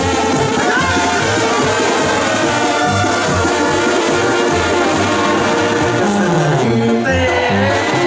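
Banda sinaloense playing live: trumpets and trombones over tuba and drums, with a stepwise falling bass run about six seconds in.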